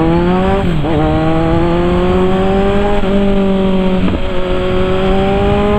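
Kawasaki Z1000 inline-four motorcycle engine accelerating hard. The pitch climbs through each gear and drops at upshifts, about a second in and again about four seconds in.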